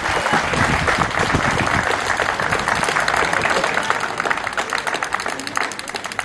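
A small crowd applauding, the clapping thinning out into separate claps toward the end.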